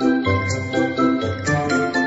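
Music: a tune of short, evenly spaced pitched notes over a sustained bass line.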